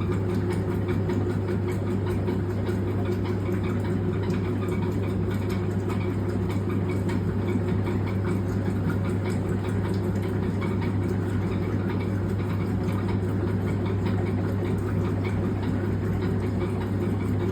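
Washing machine running through its agitation cycle with a steady low motor hum and a squeaking noise from the machine.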